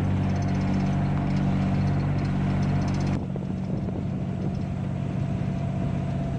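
Tour boat engine running steadily. About three seconds in, the sound changes abruptly to a lower, rougher engine note.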